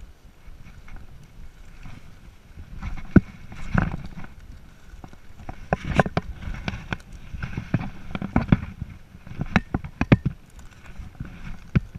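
Footsteps on rocky ground with brush scraping close against clothing and gear: irregular sharp knocks and clicks over a low rustle, sparse at first and much busier from about three seconds in.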